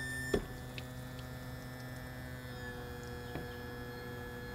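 Outboard motor's electric power tilt and trim unit running as the motor is tilted down, a steady hum with several held tones and one sharp click about a third of a second in.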